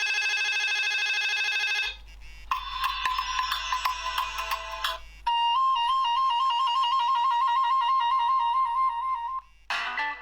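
Short electronic ringtone melodies played one after another, each cutting off abruptly after a few seconds as the next begins. One is a fast two-note trill that runs for about four seconds.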